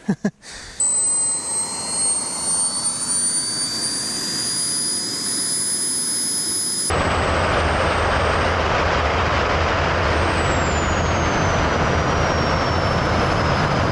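Kerosene-burning micro gas turbine (model jet engine) running on a static test: a high whine climbs slowly in pitch over a steady rushing roar. About halfway through the sound steps abruptly to a louder, deeper full-power roar, and the whine slides lower near the end.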